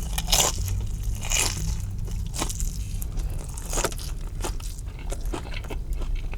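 Close-up crunching of a bite into spicy fried chicken's crispy coating, then chewing with many small crackles. The loudest crunches come near the start and again about one and a half and four seconds in.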